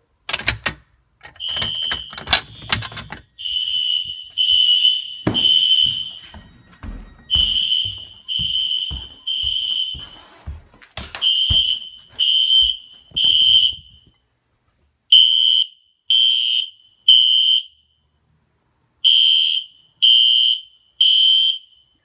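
Fire alarm system in alarm: System Sensor SpectrAlert horn-strobes sounding a high horn in the three-blast temporal pattern, three short blasts and then a pause, repeating. A few clicks and knocks come just before the horns start.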